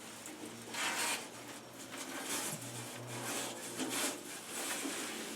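A shop rag wiping down the metal of a lathe: a run of uneven rubbing swishes, strongest about one, three and four seconds in.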